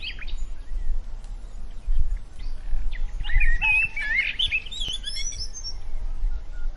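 Small songbirds chirping and warbling: scattered short calls at first, then a busier run of twittering song in the middle, over a steady low rumble.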